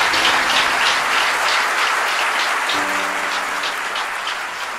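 Audience applauding at the close of a talk, the clapping slowly dying down. Soft background music with sustained notes comes in under it about three seconds in.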